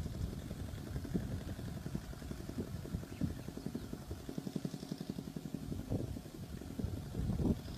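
A vehicle engine idling with a steady, finely pulsing low rumble, rising to a louder surge near the end.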